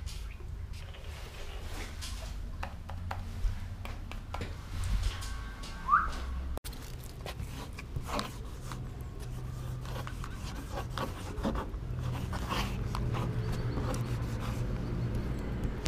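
Marker nibs rubbing and scratching on a board and then on a painted wall as graffiti tags are written, a series of short scratchy strokes. A short rising chirp about six seconds in, over a steady low rumble.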